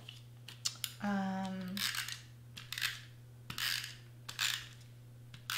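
Paper cutouts being handled, rustling in several short bursts, with a brief hummed note about a second in.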